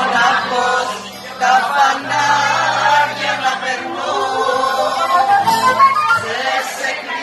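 A man singing a slow song with acoustic guitar accompaniment, in long held, wavering vocal lines over steady low notes.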